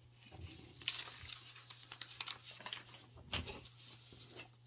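Irregular rustling and crackling, like handling or crinkling something close to the microphone, with a louder crackle about three and a half seconds in.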